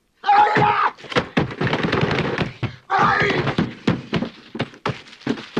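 A man pounding a desk over and over, smashing a row of cigarettes: a rapid, uneven run of hard thumps. He yells at the start and again about three seconds in.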